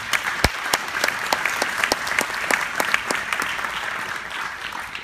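Congregation applauding, with some single claps close by standing out sharply; the applause thins out near the end.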